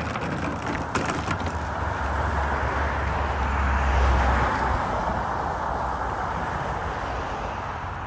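A vehicle passing on the street: tyre and engine noise swell to a peak about four seconds in, with a low rumble, then fade away.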